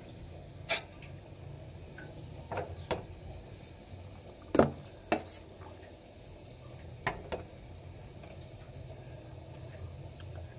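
A spoon knocking and clinking against stainless-steel lunch containers as cooked rice is scooped in: a handful of separate knocks, the loudest about halfway through, over a low steady hum.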